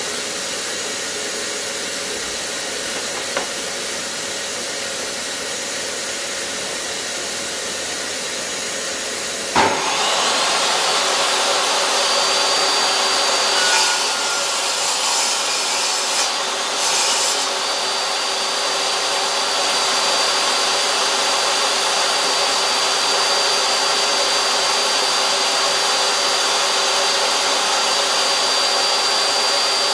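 A steady machine drone throughout. About a third of the way in, a table saw starts with a knock and spins up, then runs at a steady hum with a thin high whine. It cuts into a Merbau hardwood decking offcut a few times, making rebates with repeated passes.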